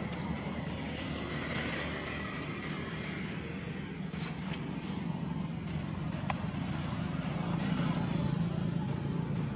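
Steady low background rumble with hiss, getting slightly louder near the end, with a few faint clicks.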